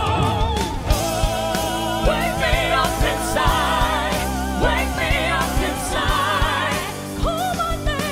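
Live pop vocalists, a man and then a woman, belting long sustained notes with wide vibrato and quick runs over a live band with drums and bass.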